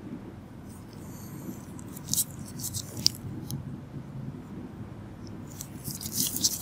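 Low steady room noise with two short clusters of crisp, high scratching clicks, the first about two seconds in with one sharp tick a second later, the second near the end.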